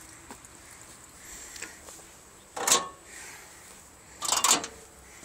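Two short scraping clatters about a second and a half apart, from hands working at the skid steer's engine compartment for an oil check; the diesel engine is not running.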